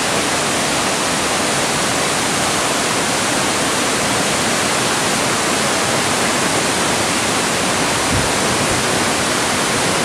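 Kuang Si waterfall and the shallow cascades below it pouring over rock: a loud, steady rush of falling water.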